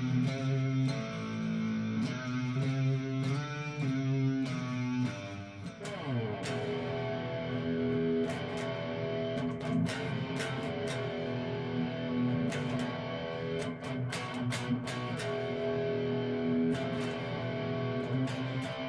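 Electric guitar playing through an amp: quick picked notes for the first few seconds, a slide down in pitch about six seconds in, then longer held notes and chords.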